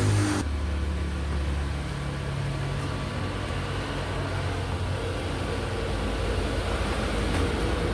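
Steady low background rumble, with a few faint clicks near the end.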